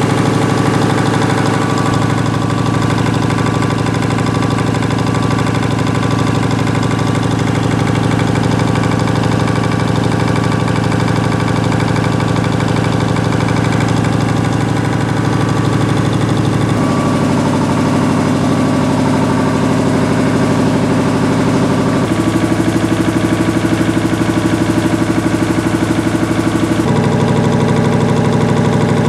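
Sperre HV2/300A two-stage reciprocating marine air compressor, driven by an electric motor, running steadily with a fast, even pulsing beat; its tone shifts a few times.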